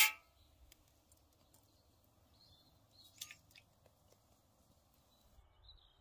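A sharp metallic clank from the cast-iron pot at the very start. About three seconds in comes a brief soft rush as salt slides off a cleaver blade into the pot of water. Faint bird chirps sound twice over a quiet forest background.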